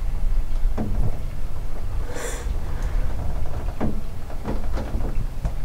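Scattered soft knocks and clicks over a steady low rumble, with a brief hiss about two seconds in: handling noise from people shifting and readying gear inside a hunting blind.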